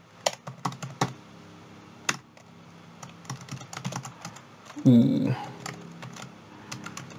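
Computer keyboard being typed on: scattered, irregular key clicks as code is entered. A short voice sound comes about five seconds in.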